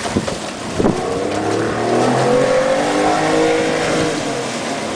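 A watercraft engine revving up, its pitch climbing for about a second and a half, holding, then falling away near the end, over steady wind and water noise. Two thumps come in the first second.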